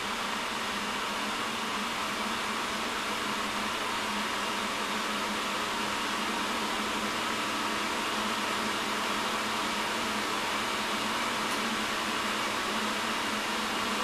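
AMD Radeon HD 6990's centrally mounted blower-style cooling fan running at high speed, a steady rushing noise that grows slightly louder as the fan spins up from 80% toward the manually set 90%.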